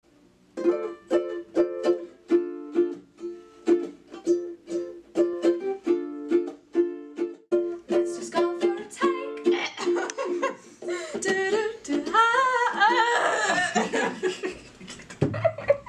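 Ukulele strummed in steady chords, about two strokes a second. Around ten seconds in, voices begin singing over it.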